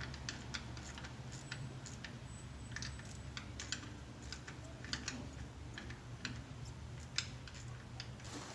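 Hand ratchet clicking in short, irregular runs while tightening the timing belt tensioner bolts, over a steady low hum.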